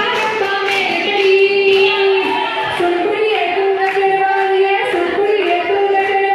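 Women singing a Punjabi folk song with held, gliding notes, over steady rhythmic hand clapping.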